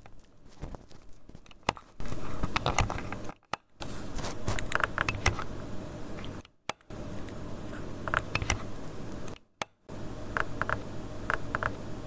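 Crackling and popping from arcing inside a failing three-way light switch, heard over a low steady hum. It is amplified and repeated in several short stretches from about two seconds in. The switch's contacts are burned and the switch has been overheating.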